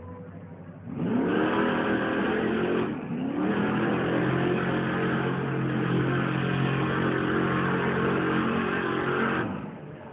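Monster truck engine revving up hard, rising in pitch about a second in, easing off briefly near three seconds, then climbing again and held at high revs before dropping away near the end.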